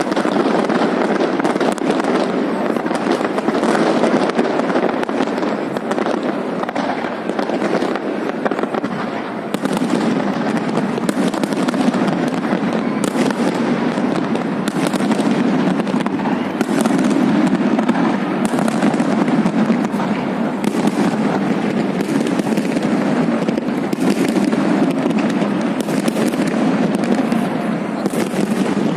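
Fireworks salute going off continuously: a dense run of bangs and crackling cracks over a steady wash of noise, with no let-up.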